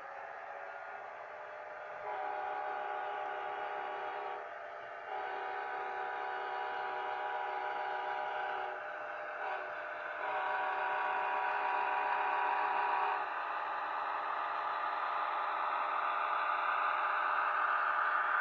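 Sound decoder in an HO scale Walthers Mainline SD70AcE model locomotive sounding its horn in the grade-crossing pattern: long, long, short, long. Underneath runs the decoder's diesel engine sound, which rises in pitch and gets louder near the end as the throttle sound works up.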